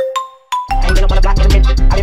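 A ringtone melody of single bell-like mallet notes, each dying away, then about two-thirds of a second in a loud hip hop beat with heavy bass comes in.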